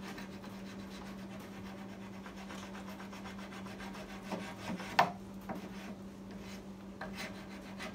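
Flat metal file rasping back and forth over hardened wood-putty fill on the edge of a wooden chair seat, smoothing the patch to the seat's curve. A single sharp tap about five seconds in, over a steady low hum.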